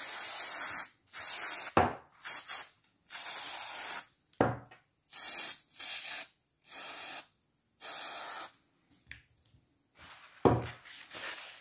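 Aerosol can of lubricant spray hissing in a series of short squirts, about eight in the first eight seconds or so, onto a spinning reel's metal crank handle and knob. A single knock near the end.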